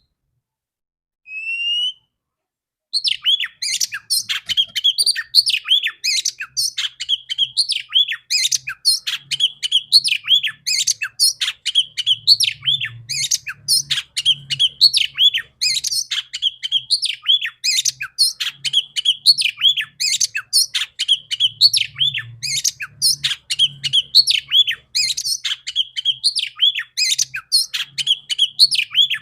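Female oriental magpie-robin (kacer) calling: a single rising note about a second in, then from about three seconds in a continuous, rapid run of high chirps and downslurred whistles in repeating phrases. This is the female's vocal that keepers play to stir male magpie-robins into singing.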